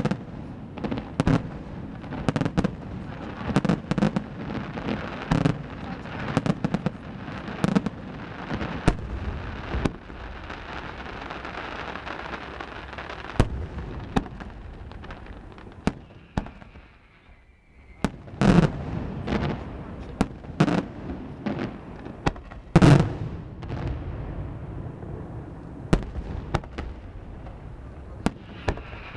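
Fireworks display: a dense run of shell bursts and crackling bangs, thinning to a brief lull a little past halfway, followed by a few loud single bursts.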